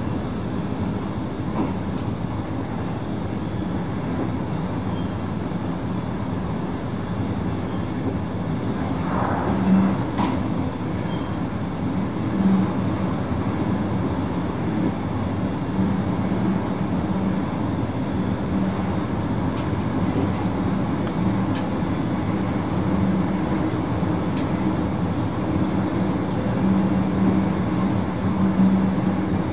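VIRM double-deck electric train running at speed, heard from inside the driver's cab: a steady rumble of wheels on the rails with a constant hum from the traction equipment, broken by a few short clicks.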